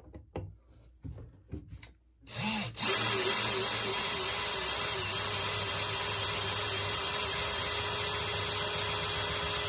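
A few faint handling sounds, then about two seconds in a power drill starts up and runs at a steady speed, boring a small hole with a roughly 1/8-inch bit for a pop rivet.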